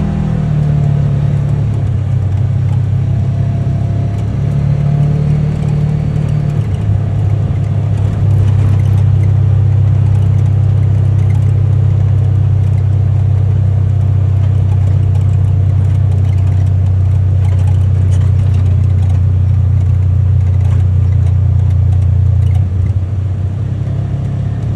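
UTV engine running while the vehicle is driven, a steady low drone. The engine note shifts about a third of the way in, holds steady and a little louder, then eases near the end.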